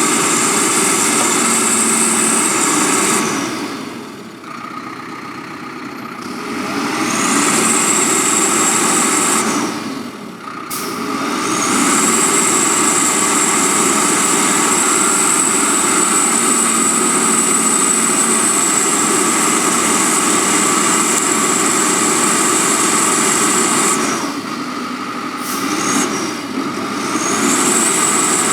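Backhoe loader running steadily, its sound dropping away for a few seconds about four seconds in, briefly at about ten seconds, and again near the end before picking back up.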